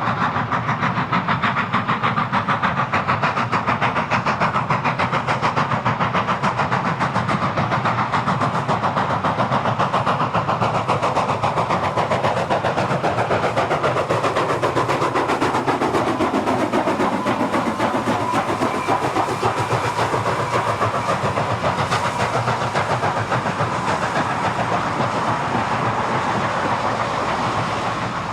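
Milwaukee Road 261, a 4-8-4 Northern steam locomotive, working hard on a run-by, its exhaust beating rapidly and evenly along with the clatter of the train on the rails.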